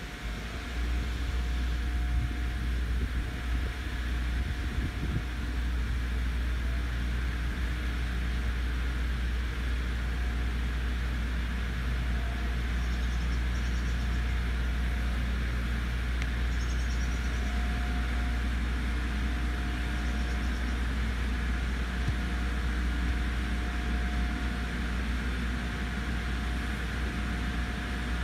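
Steady low mechanical rumble with a faint constant hum over it, as from an engine or machine running close by.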